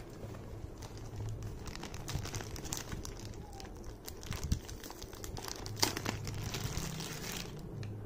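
Thin clear plastic bag crinkling and crackling as it is opened and pulled off a remote control, in irregular sharp crackles with a denser rustle near the end.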